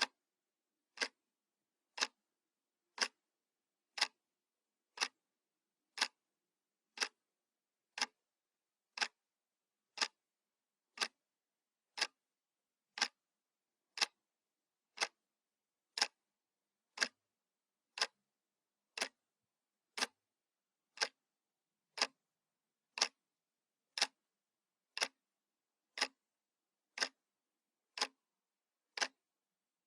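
Analog wall clock ticking steadily once a second, each tick a short sharp click with silence between.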